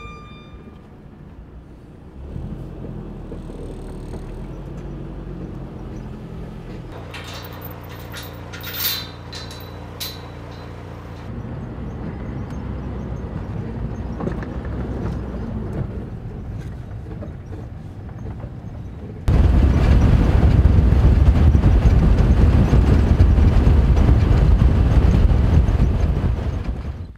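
A vehicle engine running steadily, heard from inside the cab, with a few clicks and rattles about a third of the way through. About two-thirds of the way in it gives way suddenly to much louder road and wind noise from driving along a rough dirt track.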